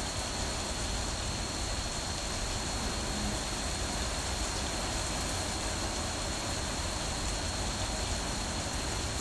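Heavy rain falling during a thunderstorm: a steady, even hiss with a constant low rumble underneath. A faint high steady tone sits over it.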